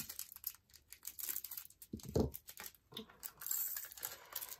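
Small plastic zip-seal bags of diamond painting drills crinkling and rustling as they are handled, with quick light clicks and a soft thump about two seconds in.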